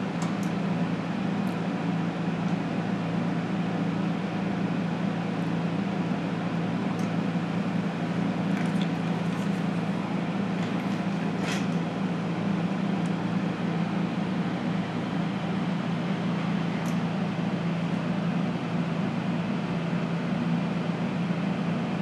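Steady low electrical hum of a resistance soldering unit while its large plier-style electrodes clamp and heat a standoff to melt the solder rings, with a few faint ticks about halfway through.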